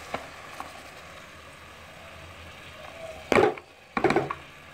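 Shredded cabbage being tipped from a plastic bowl into a metal cooking pot, with two loud knocks of bowl and pot near the end.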